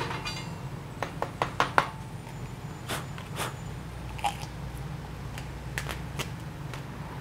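Scattered short clicks and clinks of a hand tap, its T-handle and a steel bracket being handled on a workbench, several in quick succession early on and a few more later, over a steady low hum.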